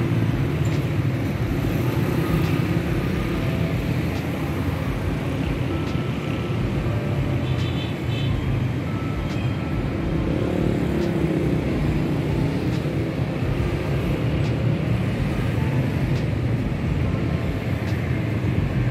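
Steady city street traffic: a continuous low rumble of cars, with a few faint short chirps and ticks over it.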